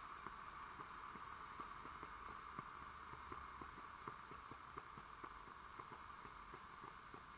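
Coffee machine running faintly: a steady soft hiss with irregular small ticks and pops, a few a second.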